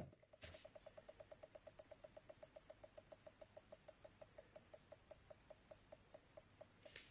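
Commodore Amiga 500 switch-mode power supply ticking faintly after being switched off, the clicks slowing from about seven a second to about three as it winds down. This is the fault the owner is chasing, which he suspects is a regulator or transistor. A single sharper click comes right at the start.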